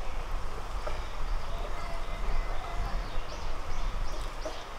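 Outdoor ambience: a steady low rumble, with small birds chirping in short repeated notes in the second half.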